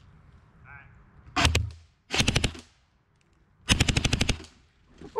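Airsoft gun firing on full auto in three short bursts of rapid shots, about fifteen a second: the last burst, near the end, is the longest.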